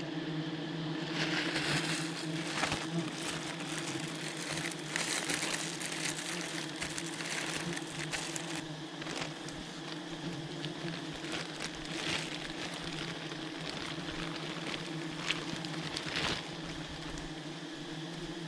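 Steady humming drone of a wild honeybee colony, with scattered light clicks and rustles.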